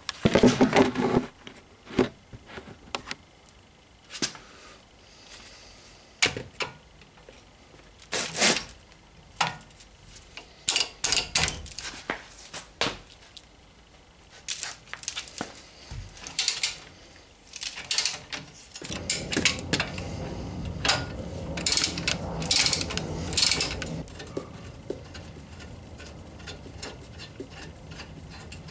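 Metal tools clinking and a socket wrench working as a 19 mm brake caliper carrier bolt is loosened and turned out by hand. Scattered sharp clicks and knocks, with a denser stretch of clattering about two-thirds of the way through.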